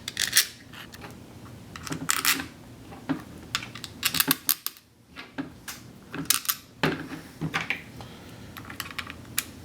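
Small screws and receiver shell parts of a Tippmann 98 Custom paintball marker clicking and scraping as the screws are set into the shell, a series of irregular sharp clicks.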